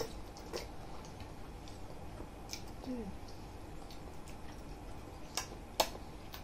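Light clicks and ticks of chopsticks and a small fork against ceramic bowls, with quiet eating sounds and two sharper clicks near the end. A brief soft voice sound comes about three seconds in.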